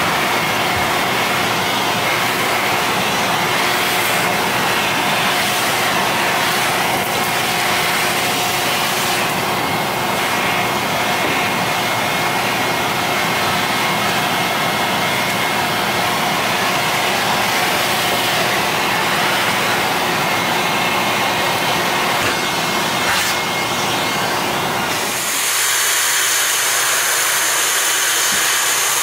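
Toshiba VC-8300 canister vacuum cleaner running steadily, a loud rushing hiss with faint steady tones in it. About 25 seconds in, the sound turns thinner and higher, mostly a hiss of rushing air.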